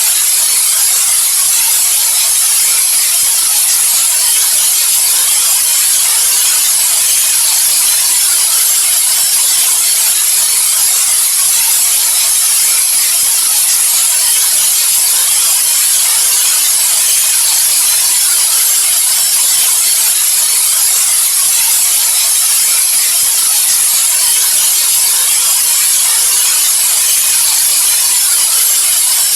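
Steady white noise: a loud, even hiss that never changes, bright and treble-heavy with little bass.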